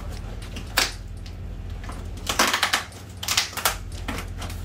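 Cardboard shipping box being opened by hand: several short rips of packing tape and cardboard tearing, with a crackle of cardboard between them.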